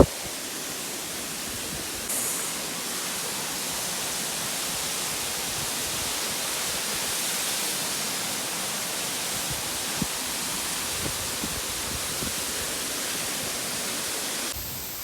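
Waterfall rushing: a steady roar of falling water that gets a little louder about two seconds in.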